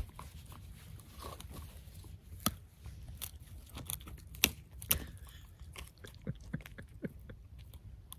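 Finnish Lapphund dog chewing and crunching on something natural found outdoors rather than a chew toy, with irregular sharp cracks, the loudest about two and a half and four and a half seconds in.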